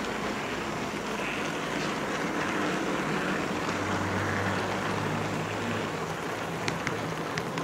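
HO-scale model railroad car rolling along the track, heard from a microphone riding on the car: a steady rolling rumble and hiss, with a few sharp clicks near the end.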